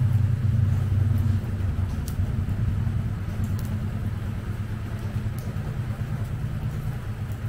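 Air from a hand fan buffeting the microphone as it fans a charcoal grill: a low, fluttering rumble that fades a little toward the end.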